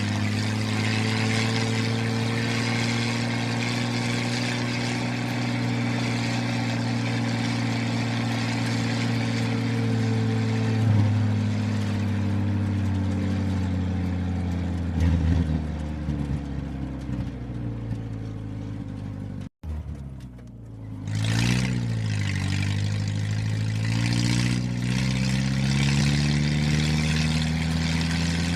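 Vehicle engine running steadily, its pitch sliding slowly down and back up. It cuts out suddenly for an instant about two-thirds through, followed by a quick dip and rise in pitch.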